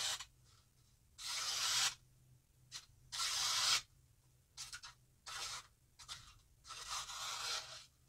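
The M390 steel blade of a Steel Will Modus F25-32 folding knife slicing through a sheet of paper in about five short strokes, each under a second, the first two the longest. This is a paper-cutting sharpness test, and the edge cuts paper cleanly.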